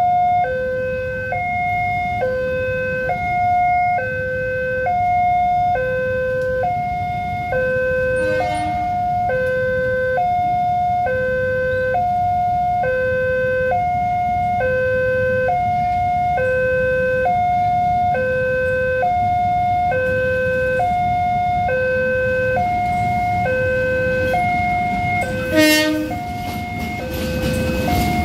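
Indonesian railway level-crossing warning bell sounding its electronic two-tone alarm, a steady alternating high-low 'ding-dong' about once a second, warning of an approaching train. A low rumble runs underneath, and there is a brief sharp noise near the end.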